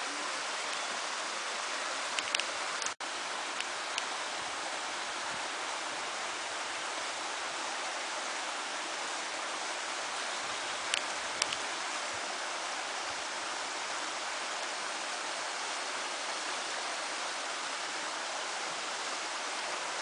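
Mountain stream rushing over rocks and small cascades, a steady even hiss of water, with a few short clicks and a very brief dropout about three seconds in.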